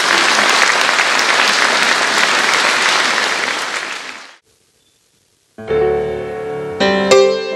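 Audience applauding, the clapping fading out about four seconds in. After a second of silence a piano comes in near the end with struck, ringing chords.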